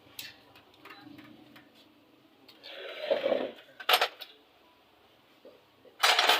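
Metal tools and parts clinking and knocking as they are handled, in a few separate knocks with quiet between, the loudest near the end.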